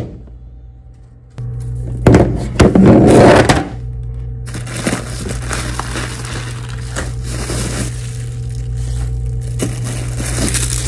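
Plastic bubble-wrap packaging crinkling and crackling as it is handled and pulled from a plastic tote. The crackling is loudest from about two seconds in to about three and a half seconds, then goes on as steadier rustling, over a steady low hum.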